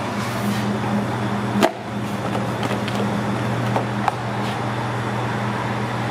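Steady low hum and noise of pizzeria kitchen equipment, with one sharp knock about a second and a half in and two lighter clicks a little later.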